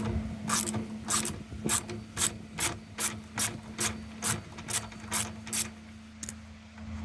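Ratchet wrench being worked back and forth on a bolt: a dozen or so evenly spaced ratcheting strokes, about two a second, that stop near the end, with a faint steady hum underneath.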